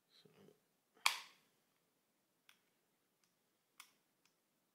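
Metal parts of a stripped MG42 trigger group clicking as they are worked by hand: a brief handling rustle, one sharp click about a second in, then a few lighter clicks.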